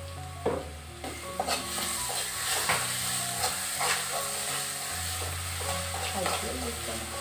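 Crushed onion sizzling as it fries in oil in a pan. A steel spoon stirs it, scraping and clicking against the pan now and then.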